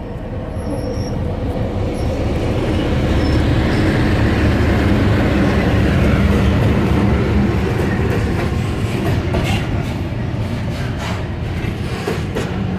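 EMD G16 diesel-electric locomotive passing, its 16-cylinder two-stroke EMD 567 engine running with a deep rumble that builds to a peak about six seconds in and then eases. Container flat wagons follow, their wheels clicking over the rail joints in the second half.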